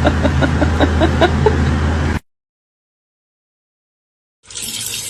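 A steady low vehicle-like hum under a quick run of short chirping calls, about five a second, cut off abruptly about two seconds in. After about two seconds of dead silence, a steady hiss like running tap water begins near the end.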